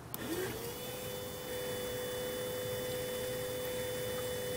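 Small electric coolant pump of a Toyota Prius switching on with a click and spinning up, its pitch rising for about half a second, then running with a steady whine as it circulates coolant through the system being refilled and bled.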